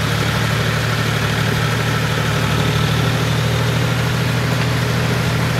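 John Deere 5045D tractor's three-cylinder diesel engine running steadily under load as it drives a rotavator through flooded paddy mud.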